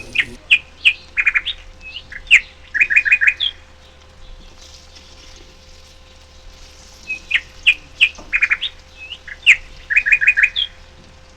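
A songbird singing two matching phrases a few seconds apart, each a string of sharp chirps ending in a quick run of notes.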